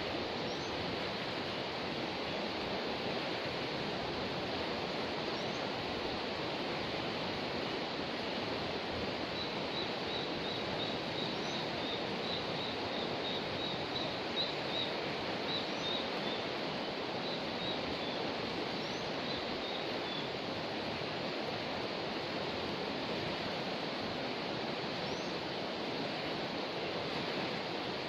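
Steady rush of a swollen, muddy river running after a flood. Partway through, a bird calls with a run of quick, high chirps for about ten seconds.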